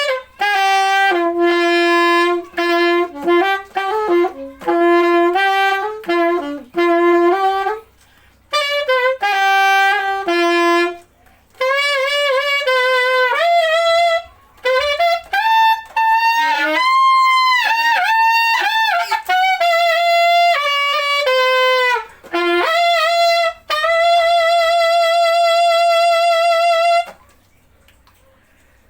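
Yamaha YAS-855 Custom alto saxophone played solo: melodic phrases broken by short pauses for breath, with sliding bent notes around the middle and a long held note with vibrato before it stops near the end.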